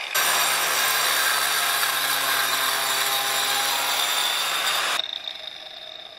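Angle grinder with a masonry cutting disc cutting through a fire brick: a loud, steady grinding for about five seconds. Then the disc comes free of the brick and the grinder runs on more quietly, fading near the end.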